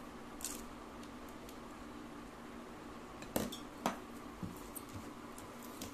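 Plates clinking as a small side plate of potato fries is tipped over a dinner plate and set down: a light clink about half a second in, then two sharp clinks about half a second apart, over steady faint background noise.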